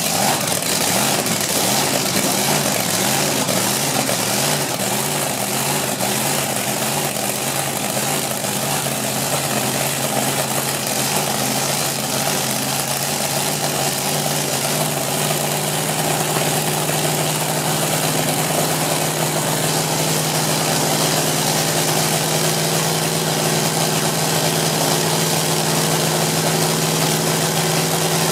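Supercharged V8 dragster engine idling loudly on its first run after a rebuild, uneven at first and settling into a steadier idle about halfway through.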